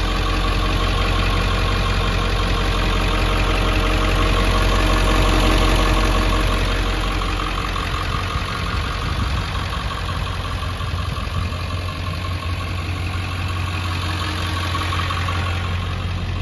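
Ford 7.3-litre Power Stroke V8 turbo diesel idling steadily.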